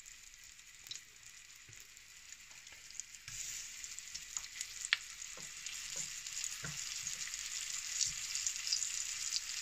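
Flour-dredged chicken pieces shallow-frying in a little olive oil in a pan. A steady sizzle grows louder about three seconds in, with scattered small pops and crackles.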